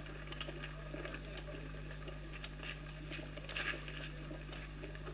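A steady low hum with faint, irregular crackling and pattering over it.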